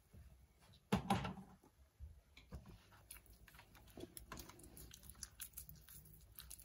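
A hand squeezing and breaking up lumps of banku dough in water in a plastic bowl: faint wet squelches and soft clicks, with one louder squelch about a second in.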